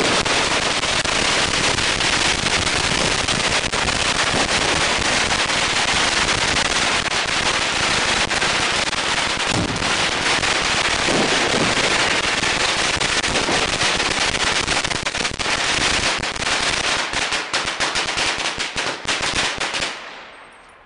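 A long string of firecrackers going off in a dense, continuous crackle of rapid bangs, thinning to scattered separate pops near the end and stopping.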